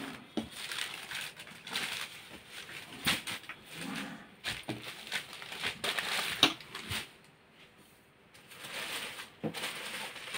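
Chiffon saree fabric rustling as hands gather, fold and slide it across a tabletop, with a few light knocks. It goes quiet for a moment about three-quarters of the way through.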